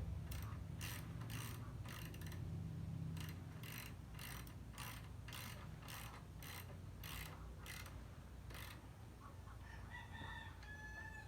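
Ratchet wrench tightening the rear shock absorber's mounting bolt, clicking in steady strokes about twice a second, then stopping. A rooster crows briefly near the end.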